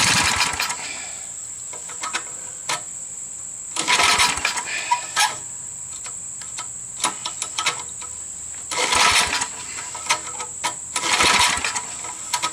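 Tecumseh V60 engine on an old Snapper riding mower being cranked in about four separate tries of roughly a second each, turning over without catching: it is choked but won't run on gasoline, which the owner puts down to a plugged carburetor. A steady high-pitched insect chirr runs underneath.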